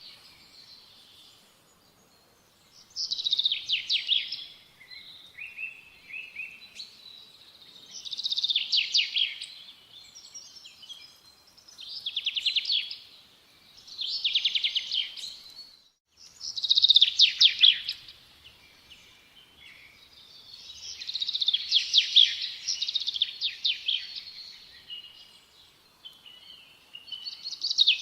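Songbird singing: high, rapid trilled phrases a second or two long, repeated every three to four seconds, with quiet gaps between.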